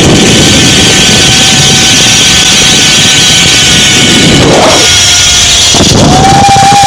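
Zip line trolley running along the steel cable, whining at a steady pitch, with heavy wind rush on the microphone. Near the end the whine rises in pitch and holds.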